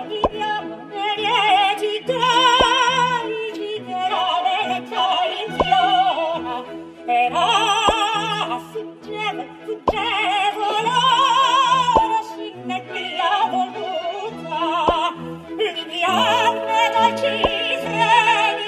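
Operatic singing with wide vibrato over orchestral backing music, with a sharp click every two to three seconds.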